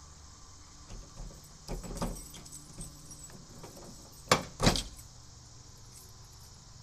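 A bunch of keys jangling and scraping at a car door's lock and handle, with light clicks, then two sharp metallic clicks a moment apart about four and a half seconds in.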